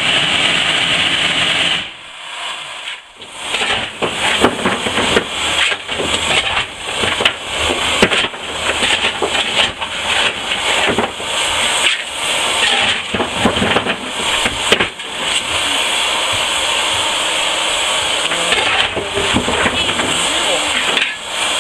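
Steam locomotive hissing, at first with steam blowing out low beside the wheels. Then, in the cab, a steady hiss of steam with many irregular metallic clanks and scrapes as the fireman works at the open firebox.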